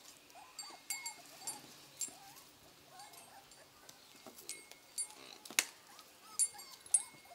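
Puppies whimpering in short rising-and-falling whines, over and over. Several sharp ticks with a brief high ring cut in, the loudest about five and a half seconds in.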